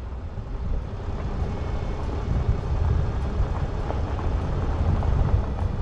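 Vehicle driving on a dirt road with washboard ripples: a steady low rumble of tyres and engine.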